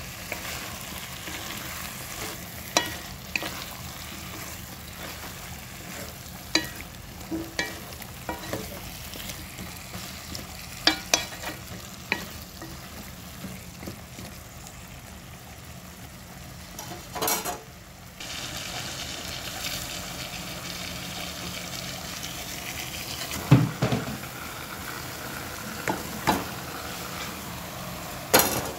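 Turnip chunks frying in an onion and tomato masala with a steady sizzle, stirred with a wooden spoon that knocks sharply against the pot at irregular moments.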